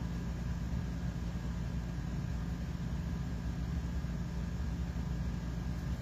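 A steady low background hum with a few faint steady tones above it, unchanging and without distinct events.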